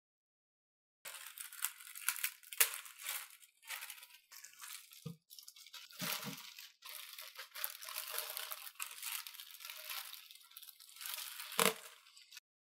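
Clear plastic bag crinkling and rustling as it is pulled off a cardboard figure box, with a few dull knocks as the box is handled.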